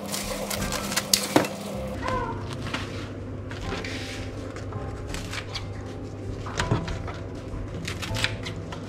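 Kitchen scissors snipping through the crust of a toasted sandwich, a few sharp crunching clicks in the first second and a half, then occasional light clicks of handling over a steady low hum.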